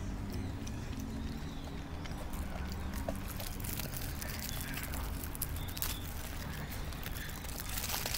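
Aluminium foil around a burrito crinkling and crackling as it is handled and picked up, the crackles growing busier in the second half, over a steady low background rumble.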